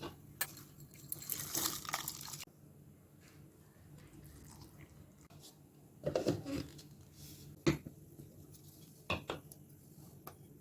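Kitchen utensils and dishes being handled: a light scraping, rustling noise for the first two seconds or so, then a few separate clinks and knocks.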